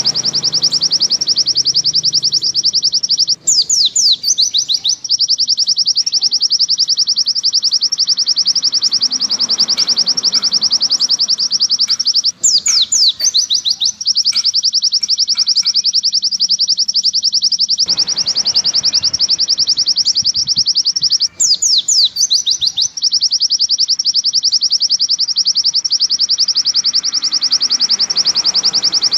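White-eye (pleci) singing a long, unbroken, rapid high-pitched chirping trill. A few quick falling whistled notes cut in three times, about every nine seconds.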